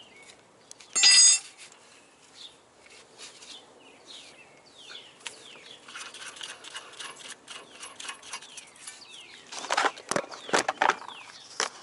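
Small birds chirping in short falling calls, with a loud, short ringing note about a second in, and sharp metallic clicks and knocks near the end from tools being handled on the car's front suspension.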